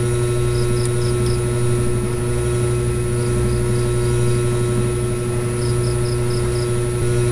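Steady low electrical hum with a constant tone and hiss underneath, with a few short runs of faint, evenly spaced ticks.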